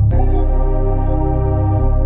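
Background music without vocals: held chords over a heavy bass. There is a sharp click near the start.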